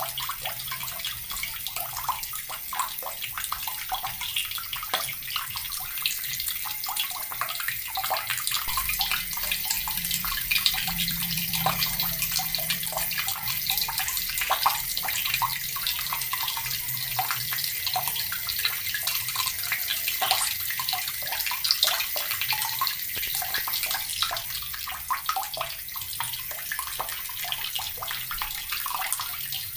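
Water from a tap pouring steadily into a bucket: a continuous, even splashing.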